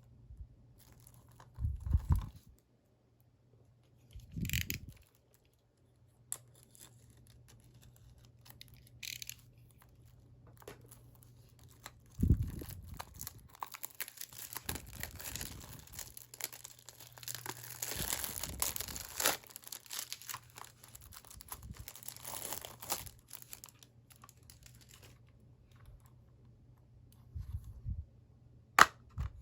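Plastic shrink-wrap on a Blu-ray/DVD case being torn and crinkled off, with several dull knocks and clicks of the case being handled. The crinkling runs longest through the middle.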